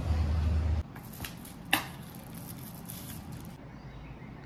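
A low steady hum that cuts off suddenly just under a second in. After it come a few light clicks and knocks, with one sharp click, the loudest sound, near the middle.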